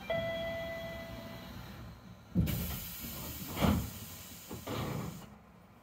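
A steady electronic chime sounds for about a second and a half. Then the monorail's doors slide shut with a hiss of air lasting about three seconds and two thuds as they close.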